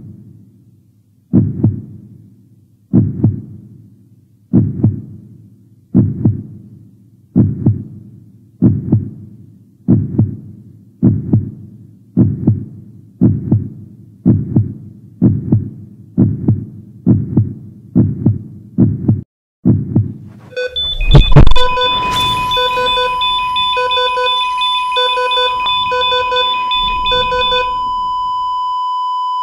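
Heartbeat sound effect: deep, evenly spaced thumps that slowly quicken, then a loud crash about twenty seconds in, followed by a steady high electronic tone like a heart-monitor flatline, with beeps pulsing over it for several seconds before the tone holds on alone.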